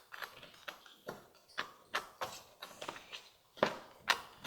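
Wooden stick stirring cornstarch and warm water in a plastic cup: irregular clicks and scrapes against the cup, two or three a second, the loudest two near the end.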